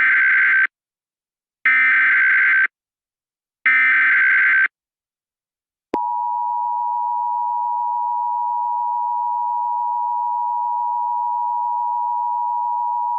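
Emergency Alert System SAME header: three one-second bursts of screeching data tones about a second apart, then the steady two-tone attention signal starting about six seconds in. It opens a civil danger warning.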